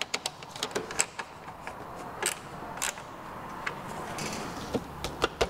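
A small ratchet clicking as it tightens the nut on a scooter turn signal's mounting stud, mixed with light taps of hands working the plastic front bodywork. There are several quick clicks in the first second, then scattered clicks, and a louder knock near the end.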